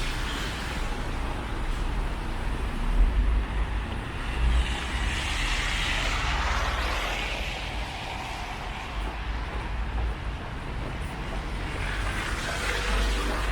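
Road traffic on a snow-covered city street: vehicles passing, their tyre and engine noise swelling and fading twice, over a steady low rumble.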